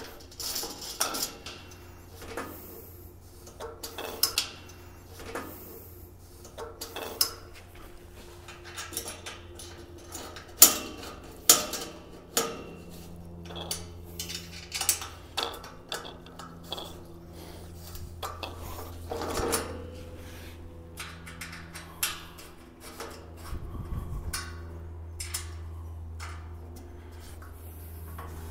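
An Allen key clinking and scraping against bolts and the stainless steel legs of a cart as the bolts are tightened: irregular small metal clicks and taps, a few louder clanks among them.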